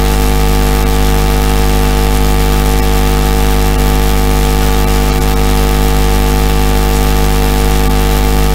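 A loud, steady buzzing hum made of many held pitches, unchanging throughout, with no speech heard over it.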